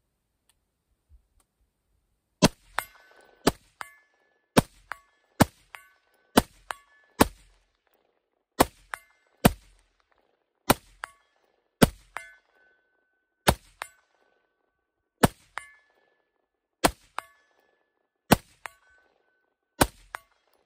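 A 16-inch 5.56 rifle fires a slow, steady string of about fifteen shots. Each shot is followed a fraction of a second later by a ringing clang as the bullet strikes a metal target about 120 yards downrange.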